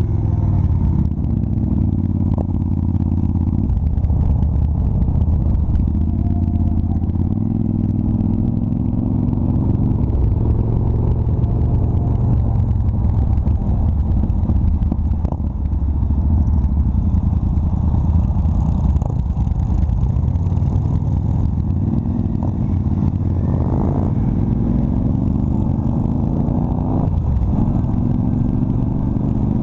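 Motorcycle engine running under way, close up. Its pitch climbs and drops several times as the bike is worked through the gears, with a rise and a shift near the end.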